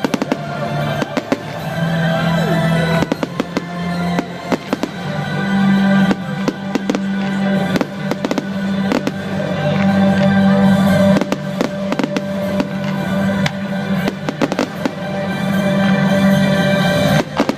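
Fireworks going off in many sharp bangs, one after another, over loud music with long held notes.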